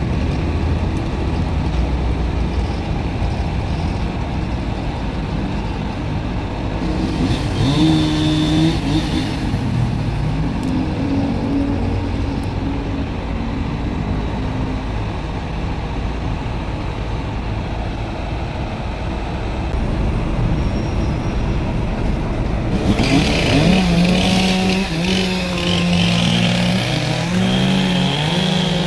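Chainsaw engine running, its pitch rising and falling as it is revved and loaded in the cut. It goes higher about a quarter of the way in and again over the last several seconds.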